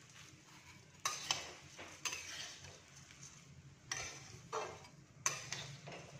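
A steel spatula stirring and turning flattened rice (poha) with onions in a metal kadhai. It makes several separate scraping, rustling strokes against the pan, about one every second, over a faint sizzle of oil. The poha is being kept moving as it roasts so the bottom does not burn.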